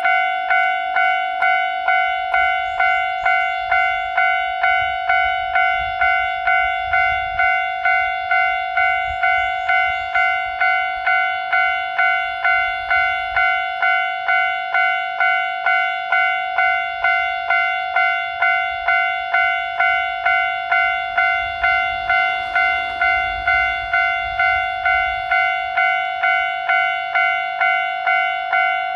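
Japanese electronic railroad crossing alarm ringing its repeated "kan-kan" bell tone at about three strikes every two seconds, each strike fading before the next. A low rumble rises and falls beneath it, strongest about three-quarters of the way through.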